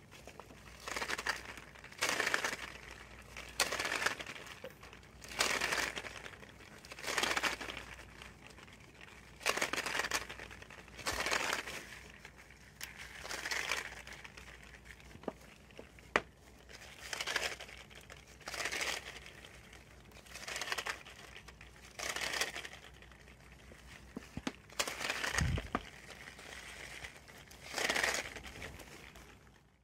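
A Jacob's ladder (click-clack toy) of small cardboard candy boxes joined by ribbons, filled with candies, flipped over and over: each flip sets off a quick clattering, rustling cascade as the boxes tumble down the ribbons, about one every second and a half.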